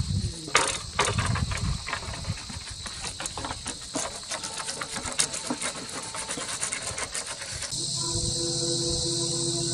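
Steady, high-pitched insect chirring. A low rumble fades out in the first couple of seconds, followed by a run of irregular clicks and knocks. Near the end the sound changes abruptly to a steady low hum under louder chirring.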